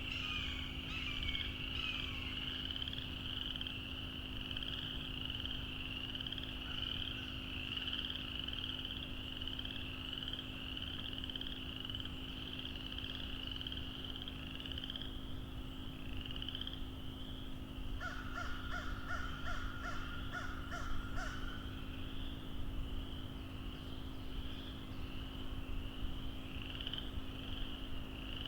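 A dense chorus of frogs calling, a continuous high pulsing trill. About two-thirds of the way in, a bird gives a quick run of about eight harsh calls. A faint steady low hum sits underneath.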